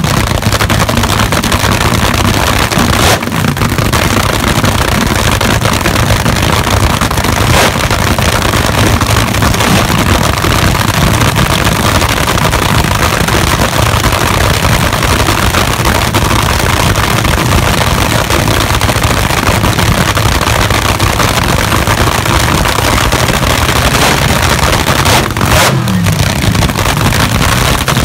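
Race car engine with open exhaust running loud and steady at close range, filling the recording.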